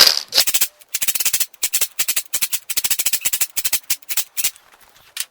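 Metal tool work on a broken stud in a cast iron engine block: a fast, ragged run of sharp clicks and scrapes that stops about four and a half seconds in.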